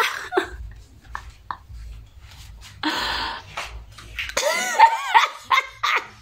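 A woman laughing: a loud breathy outburst about three seconds in, then a quick run of high laughter rising and falling in pitch near the end.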